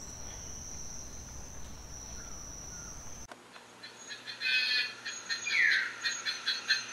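Forest insects and birds: a steady high-pitched insect trill, then about three seconds in an abrupt switch to a pulsing insect chorus, with a loud downward-sliding bird call near the end.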